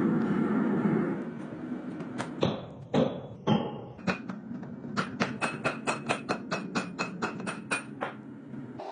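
Hammer blows on steel: a few separate strikes, then a fast, even run of about five ringing strikes a second that stops near the end. A steady rushing noise fades out about a second in.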